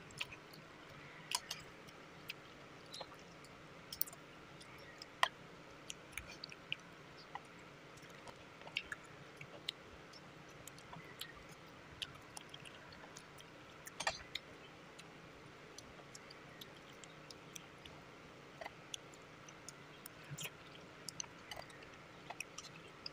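Close-miked ASMR chewing of purple sticky rice with mango: soft, faint wet mouth sounds with many scattered short clicks, from the mouth and from a metal spoon and fork on the plate.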